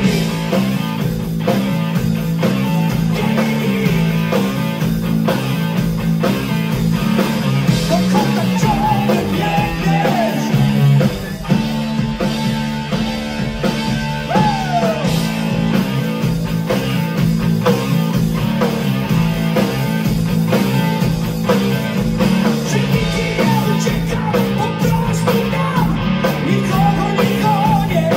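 Live rock band playing loud: electric guitar, bass guitar and a drum kit, with a singer's vocals, recorded from the audience floor.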